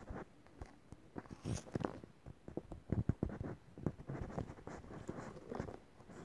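Irregular soft taps and scuffing rustles, several a second, uneven in loudness.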